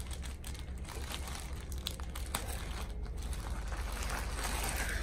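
Clear plastic polybag crinkling and rustling in quick, irregular crackles as it is handled and a pair of shorts is pulled out of it. The crackling grows busier and a little louder near the end.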